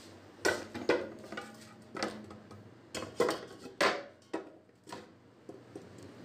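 Two bricks being set down in an aluminium cooking pot, knocking against the metal and each other: a series of sharp clunks, about eight over several seconds.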